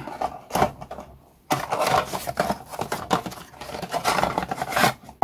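Cardboard box being handled and opened by hand. A few light knocks come first, then a long stretch of scraping and rustling as the box is worked open, which stops abruptly near the end.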